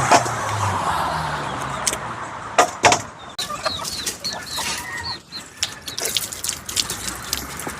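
Chickens calling: a quick run of short, high, falling peeps, with a few sharp knocks earlier on.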